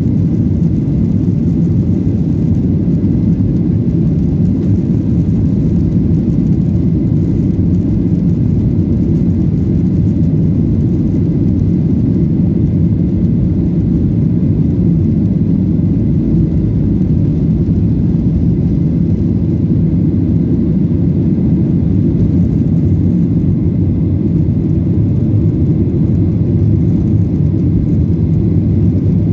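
The CFM56-7B turbofan engines of a Boeing 737-800 at takeoff thrust, heard from inside the passenger cabin: a loud, steady, low rush with a faint high tone above it, through the takeoff roll and lift-off.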